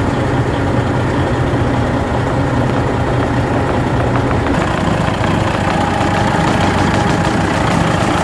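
Detroit diesel engine of a Freightliner Columbia truck idling steadily with an even low rumble.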